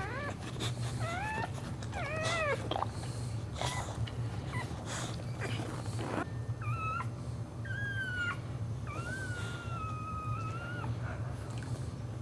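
Dog whining: a run of short, high-pitched whines and squeaks that rise and fall, then one long whine about nine seconds in, over a steady low hum.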